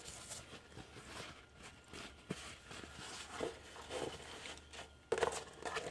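Light rustling and clicking as paper towel is laid into a clear plastic food container and the container is handled, with a louder rustle a little after five seconds.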